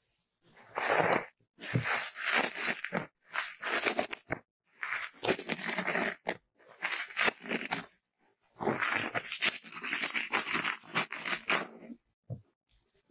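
A thin metal ear-cleaning tool scrapes and scratches inside the ear of an ear-shaped binaural microphone, heard very close and loud. It comes in about five bursts of scratching, each one to three seconds long, with short pauses between them.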